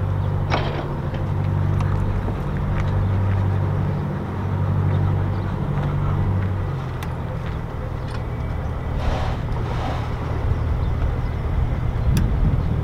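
Narrowboat engine running low and steady as a boat moves into a lock; its note wavers, then settles lower about seven seconds in.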